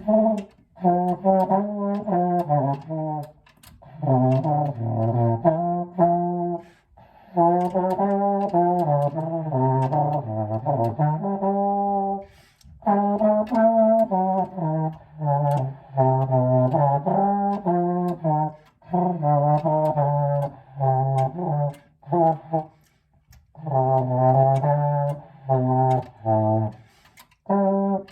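French horn played by a beginner: low notes stepping up and down in runs, in several phrases with short pauses between them.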